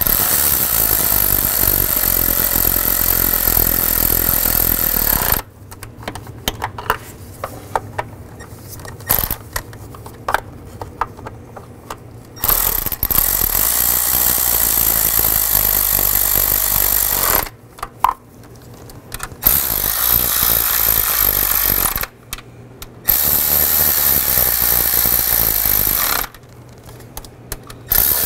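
Cordless power driver running bolts down in several bursts of a few seconds each, snugging them before final torquing. Between the bursts come quieter stretches of clicks and knocks as the socket is moved from bolt to bolt.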